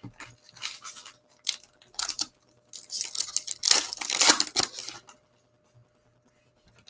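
Foil wrapper of a Panini Legacy football card pack being torn open and crinkled by hand. A few short rips come first, then a longer tearing and crinkling stretch about three to five seconds in.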